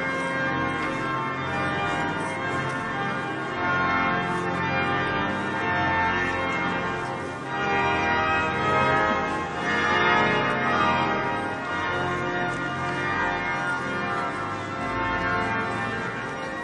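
Cathedral pipe organ playing steadily, with church bells ringing along with it, in a large reverberant nave.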